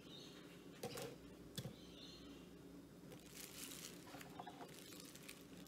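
Faint kitchen handling noise: a couple of light clicks in the first two seconds and soft rustling around the middle, over a low steady hum.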